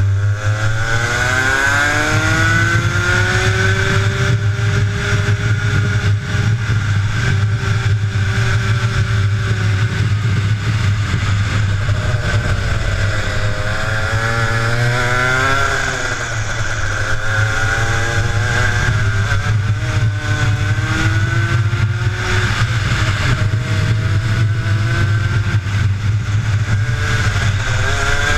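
Two-stroke Rotax kart engine at racing speed, heard close up. Its pitch climbs over the first few seconds as it accelerates, drops sharply and climbs again around the middle as it slows for a bend and pulls away, then rises and falls through further corners.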